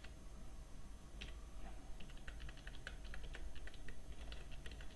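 Typing on a computer keyboard: a single key click about a second in, then a quick, uneven run of key clicks from about two seconds on.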